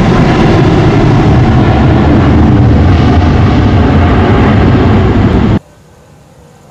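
Boeing 737 jet engines at take-off thrust as the airliner climbs out, a loud, steady, deep roar that cuts off suddenly about five and a half seconds in.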